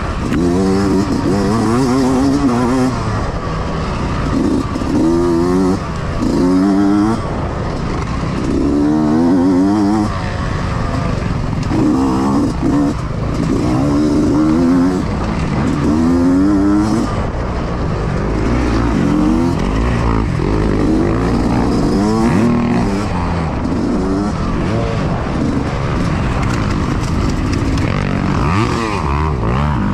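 Yamaha YZ125X two-stroke 125 cc dirt bike engine racing off-road, heard onboard: it revs up in rising climbs and drops off again over and over as the throttle is opened and closed.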